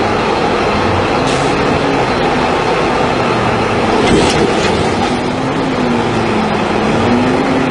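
Heavy equipment's diesel engine running steadily under load, its pitch wavering up and down, with a single sharp knock about four seconds in.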